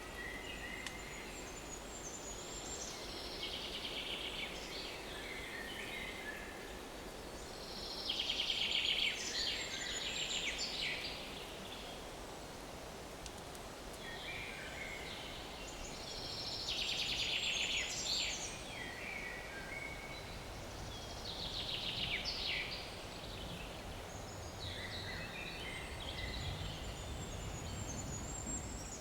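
Small woodland songbirds singing, one fast trilled song phrase of about two seconds repeated roughly every six to eight seconds, over a steady faint outdoor background. A low hum comes in during the last third.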